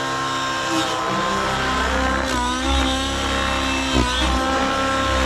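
Nitro RC helicopter in flight: OS 105HZ-R two-stroke glow engine and rotors running steadily, the rotor head at about 2000 rpm. The engine note dips briefly and recovers twice as it loads up in manoeuvres.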